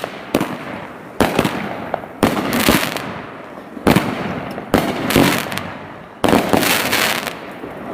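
Multi-shot fireworks cake firing: a run of sharp bangs, about one a second, each fading away after the shot.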